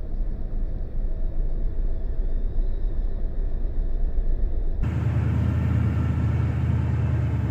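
Steady low rumbling outdoor noise. About five seconds in it changes abruptly to a fuller, brighter rumble.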